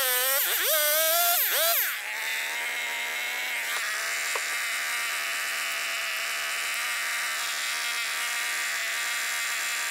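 Gasoline chainsaw revved twice, its pitch rising and falling, then dropping back to a steady idle about two seconds in and idling for the rest.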